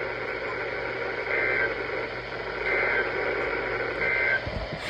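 Three short, buzzy data bursts of an Emergency Alert System end-of-message (EOM) code, about a second and a third apart, over steady radio hiss on a NOAA Weather Radio broadcast. They mark the end of the severe thunderstorm warning.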